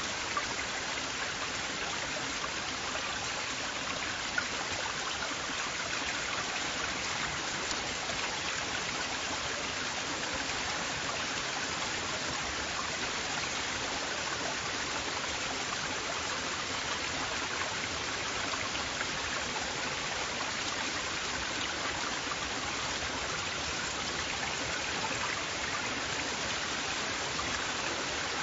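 River water flowing: a steady, even rushing with no change in strength.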